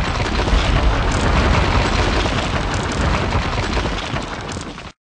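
Sound effect of the channel's wall intro: a loud explosion-like rumble with crackle over it. It fades over its last second and then cuts off abruptly.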